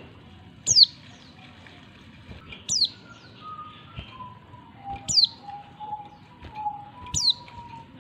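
Female oriental white-eye giving its call to attract a male: a sharp, high note sliding downward, repeated four times about every two seconds. Softer, lower whistled notes run between the calls through the middle.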